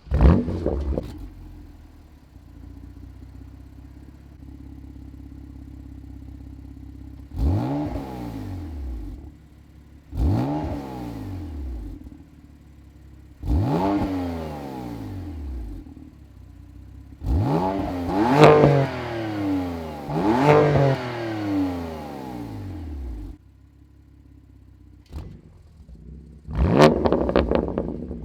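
BMW M2 Competition's twin-turbo straight-six firing up with a loud flare, then idling through a Milltek OPF-back equal-length exhaust. It is revved in a series of stationary blips, each climbing and falling back to idle. The later blips go higher, and a final burst of revs comes near the end.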